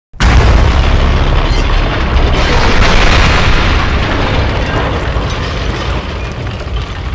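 Explosion sound effect: a sudden loud blast just after the start, then a long noisy rumble that slowly fades.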